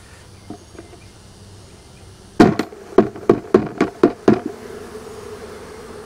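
A hive frame of honeybees jerked down hard into a plastic bucket to shake the bees off, giving about seven sharp knocks in two seconds. Right after, the buzz of the dislodged, agitated honeybees swells and holds.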